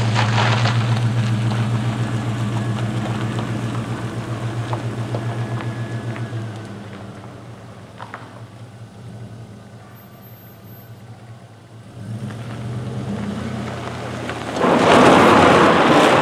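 LS V8 engine of a swapped Mazda B2200 pickup running, fading as the truck moves off and growing again as it comes back. About fifteen seconds in comes a loud rush of tyres sliding on gravel as the truck passes and the emergency brake locks both rear wheels.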